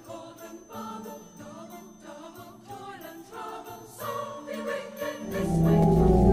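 Background music: a light melody of short high notes, joined about five seconds in by a loud, deep swell.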